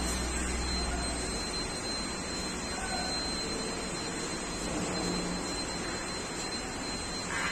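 Steady rushing background noise with a thin high whine; a low hum drops away about a second in.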